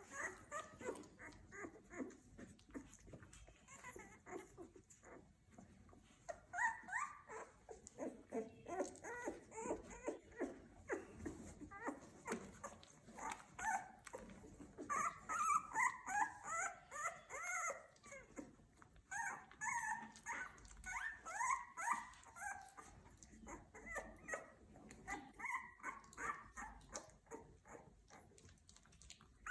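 Two-week-old puppies squeaking and whimpering in runs of short, high rising-and-falling calls, over a steady patter of little clicks and smacks from a puppy suckling.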